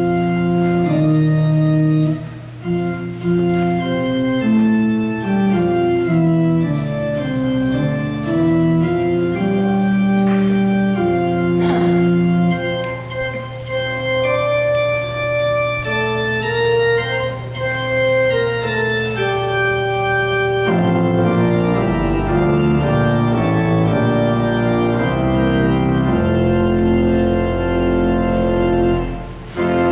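Church organ playing the introduction to the opening hymn in sustained chords. A low bass note is held under the changing chords for about the first twenty seconds, then the bass line starts to move.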